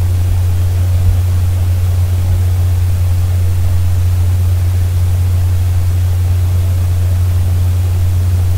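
Steady, loud low hum under an even hiss, unchanging throughout, with one small knock about a second in.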